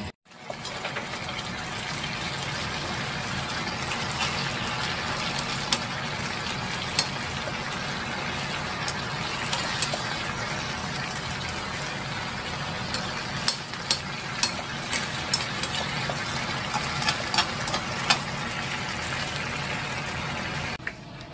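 Spicy octopus and cabbage stir-fry sizzling in a frying pan, a steady hiss, with metal tongs clicking against the pan as the food is turned, mostly in the second half.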